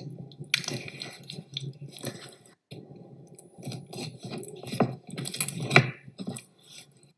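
Small knife slicing cuts into raw chicken thigh and drumstick pieces on a wooden cutting board: wet, squishy cutting through skin and flesh with irregular sharp clicks and taps, loudest a little past the middle, over a steady low hum.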